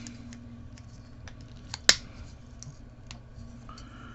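Plastic parts of a small snap-together model kit clicking as they are handled and fitted together, with one sharp snap about two seconds in.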